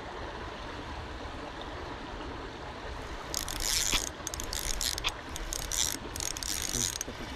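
A fishing reel cranked in quick, uneven spurts, its gears whirring and ticking. It starts about three seconds in and stops near the end.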